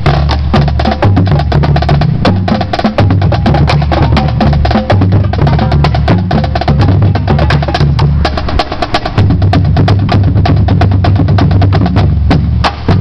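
Marching drumline playing: dense, rapid stick strokes on the drums with low bass drums sounding underneath, loud and without a break.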